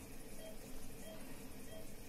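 Steady hiss of a respirator machine used as white noise, with a short faint tone repeating about every two-thirds of a second.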